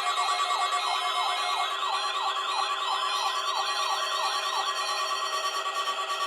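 Weather radio alert alarm: a warbling siren sweeps up and down about three times a second over a steady high tone. Near the end the warble stops and the steady tone carries on alone.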